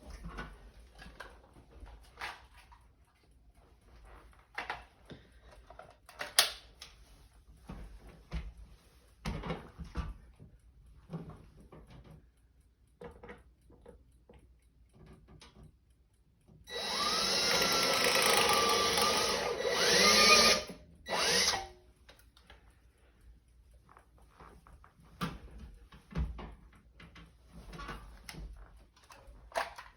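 Cordless power drill boring a pilot hole for a shade bracket: one run of about four seconds, its pitch sliding up and down with the trigger, then a short second burst. Before it, scattered light clicks and knocks of hardware being handled.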